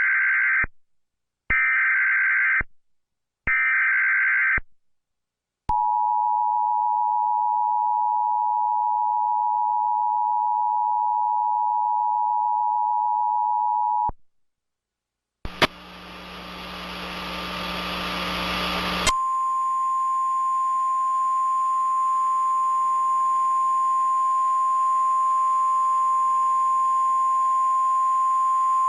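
Emergency Alert System tones: three short bursts of the SAME data header, each about a second long, then the two-tone attention signal held steady for about eight seconds. After a brief break a hiss of radio static comes up. About three seconds later the single steady NOAA Weather Radio warning alarm tone sounds over the static for about ten seconds.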